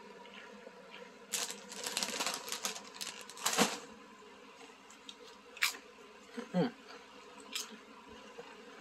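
Crunching a cheddar bacon potato chip: a run of crisp crackles from about a second and a half in to nearly four seconds in, then a few scattered clicks of chewing.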